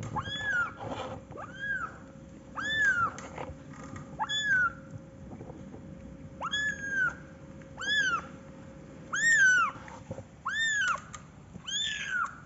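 Young kitten mewing over and over: about ten high-pitched mews, each rising and then falling in pitch, roughly one a second.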